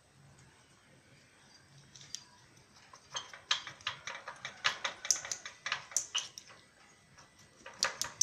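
A run of sharp clicks, several a second, starting about three seconds in, pausing briefly, then coming again near the end: a dog's teeth clicking as it nibbles at another dog's coat.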